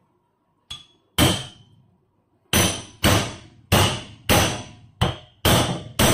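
Cleaver being hammered down through the hard head of a fish on a wooden chopping board: about nine sharp, ringing knocks, roughly two a second, starting about a second in.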